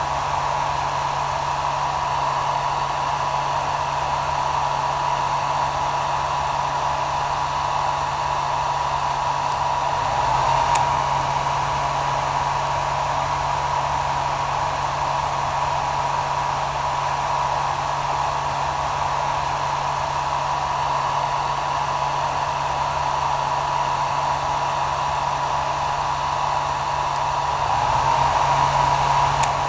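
Hair dryer running steadily: an even rush of air with a steady whine and a low hum beneath, swelling slightly twice, about ten seconds in and near the end.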